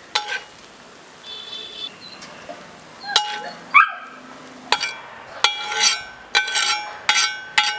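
Metal utensils clinking and scraping against a griddle and a steel vessel as cooked chicken is lifted off and transferred, a run of sharp ringing clinks that come quick and close together in the second half. A short squeak comes a little before the middle.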